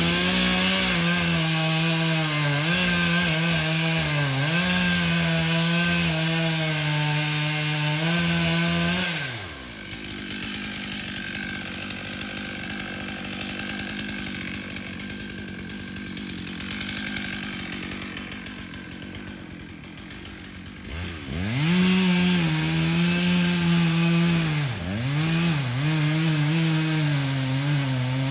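Chainsaw engine running at full throttle and cutting wood, its pitch dipping again and again under load. About nine seconds in it drops to a quieter idle, then revs back up about twenty seconds in and cuts again.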